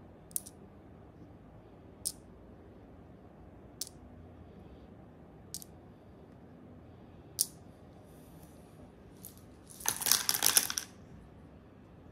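Small wooden stamp-game tiles clicking one at a time, about every two seconds, as they are stacked in a palm. About ten seconds in, a handful of tiles clatters together for about a second as they are dropped back into the wooden box.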